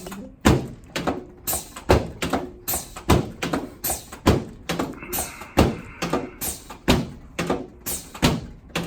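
A steady series of sharp taps or knocks, about two a second, fairly evenly spaced.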